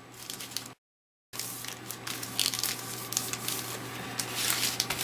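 Foil trading-card pack wrappers crinkling and rustling as packs are handled and set down, with a brief dead-silent break about a second in.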